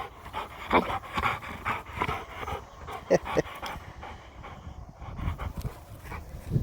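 Dog panting in quick, short breaths, with a few louder breaths among them.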